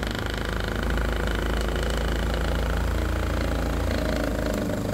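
Mastercraft cordless reciprocating saw (3000 strokes a minute, 1-inch stroke) with its wood blade sawing steadily through a thick piece of very hard pallet wood.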